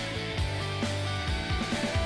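Background music with a steady beat: held instrument notes over regular drum hits.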